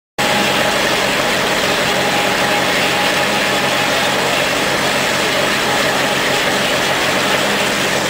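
Old circular sawmill's machinery running steadily: a low engine hum under a broad, even rushing noise, with a thin whine through the first few seconds.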